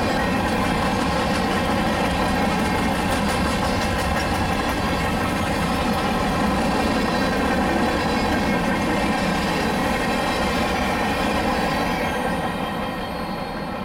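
Freight train's covered hopper cars rolling past on the rails: a steady, loud rumble of steel wheels on track, getting quieter near the end as the cars move away.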